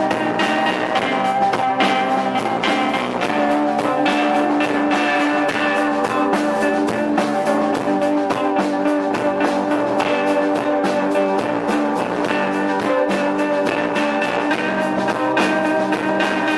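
Live post-punk band playing an instrumental intro, guitar to the fore over a dense, steady rhythm with no singing.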